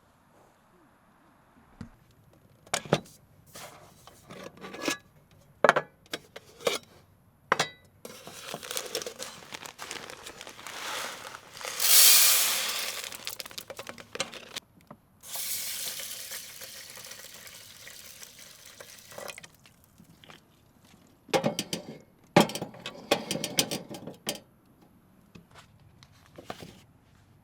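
Sharp clicks and clatter of things being handled, with two long stretches of hissing noise in the middle, the first swelling loudest before fading.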